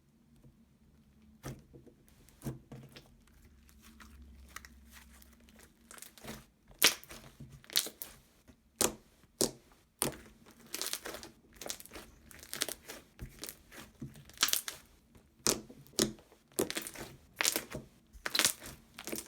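Slime being squished and stretched by hand, giving irregular sticky clicks, pops and crackles; faint at first, then louder and busier from about six seconds in.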